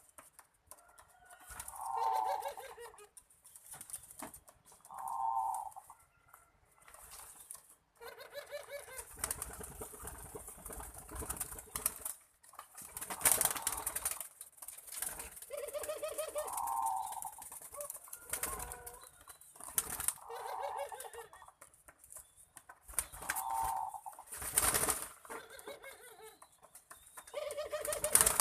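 Barbary doves (burung puter) cooing over and over in short repeated phrases, with several brief bursts of wing flapping between the calls.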